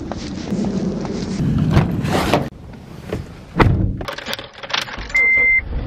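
Footsteps and rustling going down concrete stairs, then a thud and small clicks as a key goes into a car's ignition lock, and one short steady high beep about five seconds in.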